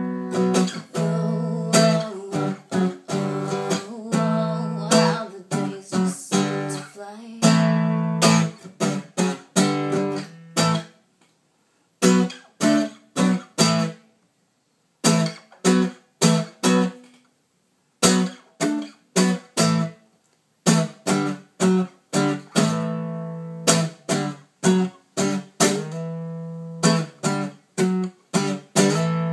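Acoustic guitar strummed in an instrumental break, chords ringing out. Through the middle stretch the chords are struck short and choked off with silent gaps between them, then the full ringing strumming resumes.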